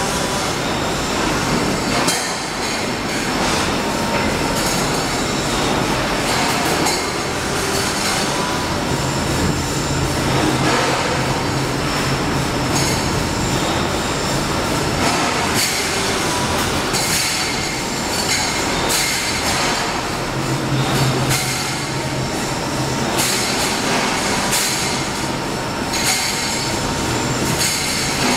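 Automatic steel pipe cutting machine at work, its circular saw blade cutting steel tube: a steady metallic grinding with a high-pitched squeal and sharp clanks now and then.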